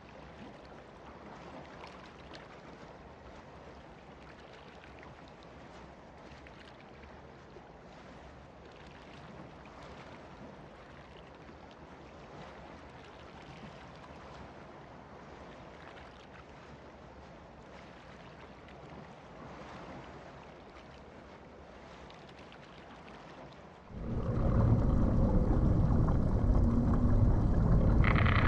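An even, watery hiss like an underwater or wave recording. About 24 seconds in, a much louder low rumble with steady hums cuts in suddenly.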